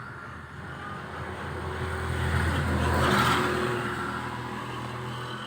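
A motor vehicle passing by: its engine and tyre noise build up to a peak about three seconds in and then fade away.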